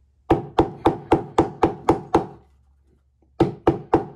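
Small cobbler's hammer tapping rapidly on glued leather on a stone slab, about four even strikes a second, each with a short ring. The tapping stops for about a second after the middle and then starts again. The hammering presses the glued edges of the two leather layers together so the glue holds.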